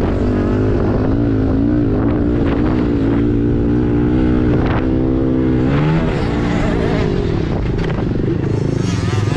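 Pit bike engine revving as it is ridden, its pitch rising and falling with the throttle; it drops sharply about six seconds in and climbs again near the end.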